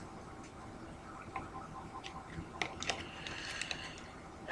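Faint, scattered light clicks and ticks, more of them in the second half, typical of trading cards and a pack being handled on a table.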